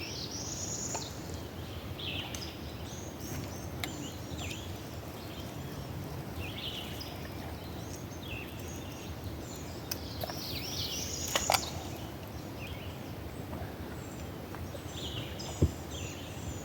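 Birds chirping and calling again and again over a steady low rushing noise. There is a sharp knock past the middle and a low thump near the end.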